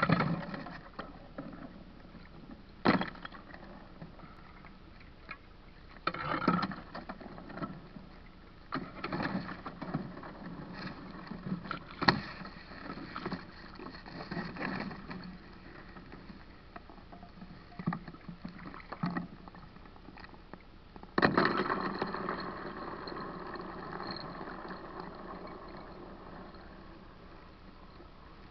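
Shallow lake water splashing and sloshing close up while thin sheets of ice are handled, with irregular sharp knocks and clinks. A bigger splash about two-thirds of the way through, then water washing about as it settles.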